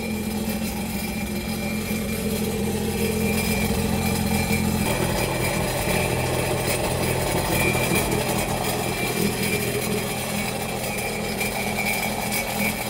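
Sea-Doo GTR jet ski engine idling steadily while run on its trailer, flushed through a garden hose; it swells a little a few seconds in, then holds steady.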